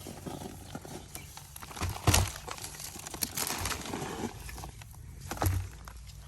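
Digging and handling in loose potting soil while harvesting ube tubers: rustling and scraping with irregular dull thumps, the loudest about two seconds in and another about five and a half seconds in.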